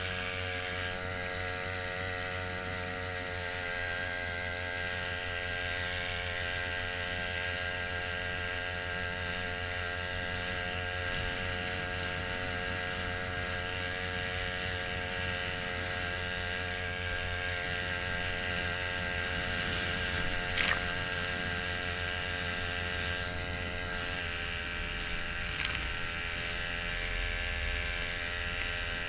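Small outboard motor mounted on a kayak, running steadily at a constant speed. Its tone shifts slightly about three-quarters of the way through, and there is one brief click about two-thirds in.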